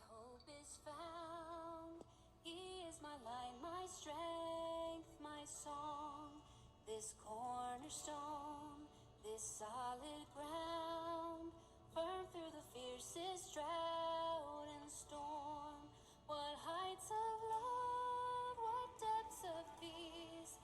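Music with a woman singing a slow melody, holding wavering notes with vibrato.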